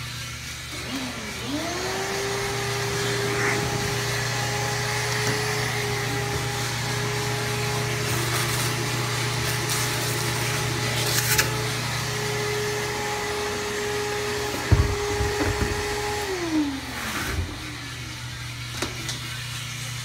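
A 3-kilo drum coffee roaster running with a steady low hum. About a second and a half in, a motor on its cooling tray spins up to a steady tone and runs for about fifteen seconds with a few clicks, then winds down near the end.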